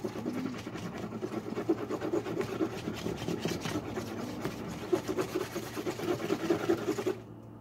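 A utensil stirring and scraping sticky slime against a serving tray in quick repeated strokes, as salt is mixed in to try to thicken it. The stirring stops about seven seconds in.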